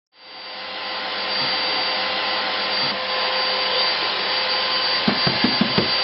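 Steady whirring hiss of an electric blower motor, fading in over the first second. Near the end comes a quick run of about six light knocks.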